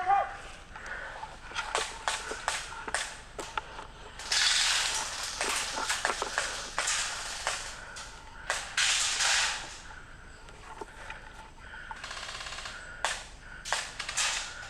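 Airsoft gunfire: scattered sharp snaps and clicks, with a short burst of rapid, even full-auto fire about twelve seconds in. A rougher stretch of noise fills the middle seconds.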